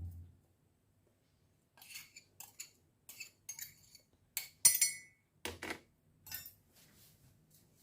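Small metal spoon tapping and scraping against a dish as a spoonful of fresh ginger is added: a run of light clinks and scrapes, with one sharper clink about halfway through that rings briefly.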